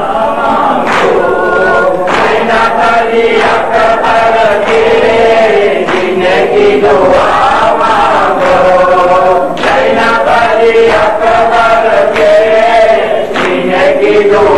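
A noha, a Shia mourning lament, chanted by a male reciter on a microphone with a crowd of men singing along. Repeated sharp slaps of chest-beating (matam) keep time under the singing.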